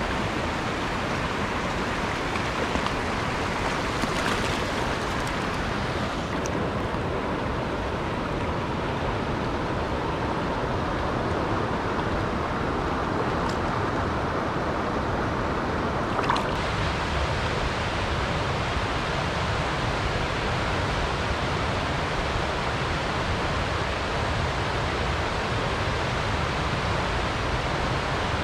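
Fast, shallow mountain stream rushing over rocks in riffles: a steady wash of moving water, with one brief click about halfway through.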